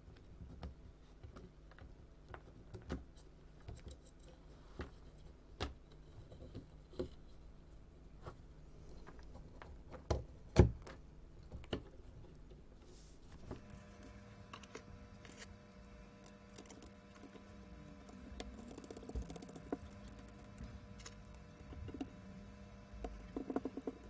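Scattered light clicks and taps of plastic and metal parts being handled and pressed together as the cordless drill's motor and brush holder are fitted back into its plastic housing, with one sharper snap about ten seconds in. A faint steady hum comes in about halfway.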